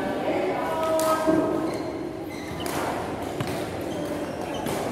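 Badminton hall between rallies: indistinct voices in the first couple of seconds, then a few sharp clicks of rackets striking shuttlecocks, echoing in the large hall.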